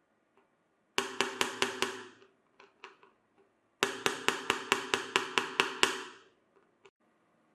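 Two quick runs of sharp knocks, about five a second: about six strikes about a second in, then about eleven more a few seconds later, with a faint ringing under each run.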